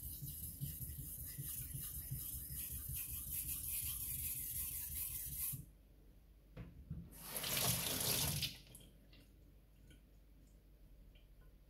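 A Takamura Chromax kitchen knife is stroked back and forth on a wet Japanese waterstone for about five and a half seconds, then stops abruptly. About a second and a half later comes a short rush of running tap water, lasting about a second and a half.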